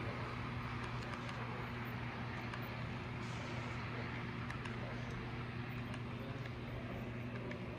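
Model freight train rolling past on its track: a steady low hum under an even rolling noise, with scattered light clicks.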